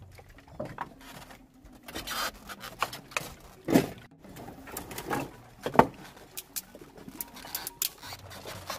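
Irregular clicks, knocks and rustling, with two louder knocks about four and six seconds in.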